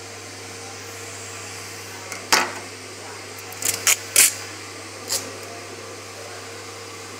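Screen-printing vacuum bed's suction motor running with a steady hum. A few sharp knocks and clicks come between about two and five seconds in, the loudest first.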